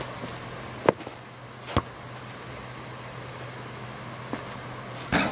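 Basketball impacts: two sharp knocks about a second apart, a faint knock later and another knock near the end, over a steady low hum.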